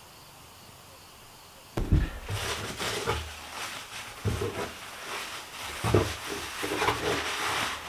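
Paper crinkling and rustling as hands fold and crumple a sheet on a wooden tabletop, with a few soft knocks of the hands against the table. It starts suddenly about two seconds in, after faint steady background.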